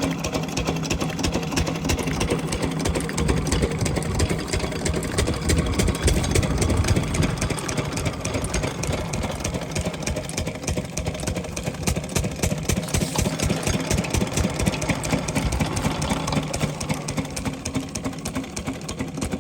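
12 hp diesel water-pump engine running with a steady, rapid clatter, briefly louder about six seconds in.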